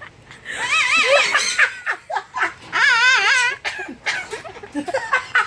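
A woman laughing hard in high-pitched, wavering peals, two long ones with short bursts of giggling between them.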